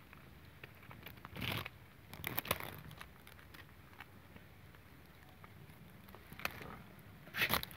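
Cat chewing on a freshly caught small squirrel: a few short spells of crunching and tearing, about a second and a half in, around two and a half seconds, and near the end, with faint rustling of dry leaves between them.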